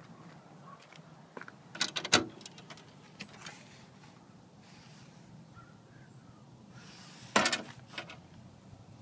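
Metal mailbox door with a magnetic latch being handled: a cluster of sharp clacks about two seconds in as the door is pulled open, a few light knocks after it, and another loud clack about seven and a half seconds in.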